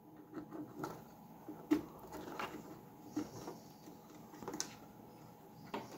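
Faint scattered clicks and rustles of fingers handling thin light-bar wires against an RC truck's body shell, with a sharper tick about two seconds in.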